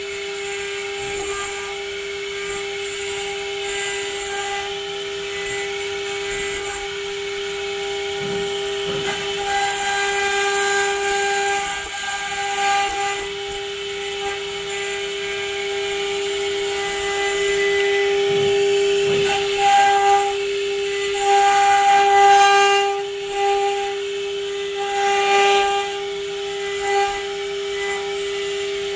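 The spindle of an STS1325H stone CNC router runs with a steady whine while its bit carves stone. Over it, a high, gritty hiss of cutting comes and goes every second or two.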